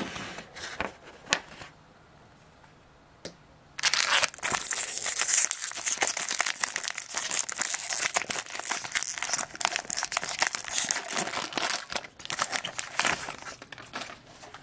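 Foil wrapper of a baseball card jumbo pack being torn open and crinkled, a dense crackling rustle that starts about four seconds in and lasts about ten seconds. A few light taps come before it.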